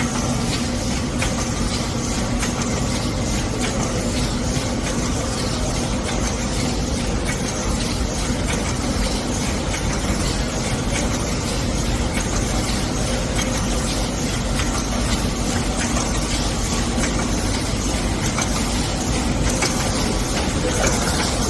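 Automatic wet-wipe production machine running steadily: a dense mechanical clatter of rapid ticks over a steady hum.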